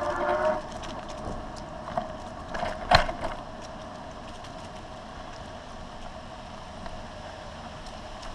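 A Pedego City Commuter electric bicycle riding over rough, patched asphalt: a steady hum from the motor and tyres, with a brief whine at the start. There are scattered rattling clicks, and a sharp knock about three seconds in as the bike jolts over the pavement.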